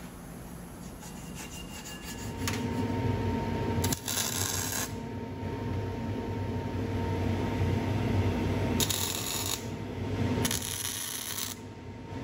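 Metal lathe running. A steady hum with a faint whine starts about two seconds in, and several short bursts of scraping and hiss come from cutting metal while the inside of a steel tube is machined out.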